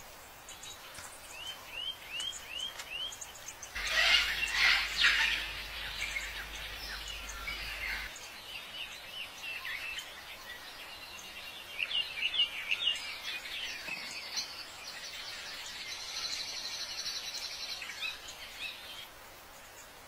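Birds chirping and calling over a faint outdoor hiss: a run of about five quick rising chirps, a louder dense burst of calls about four seconds in, more chirps later and a fast high trill near the end.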